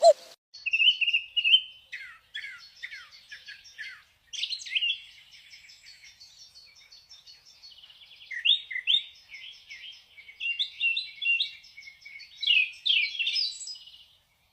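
Birds singing: phrases of quick high chirps and short falling whistles, with brief pauses between them.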